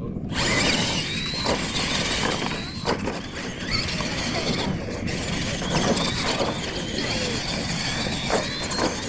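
Radio-controlled monster trucks launching and racing over dirt, their electric motors and gears giving a high, wavering whine over the rumble of the tyres, with a few short knocks.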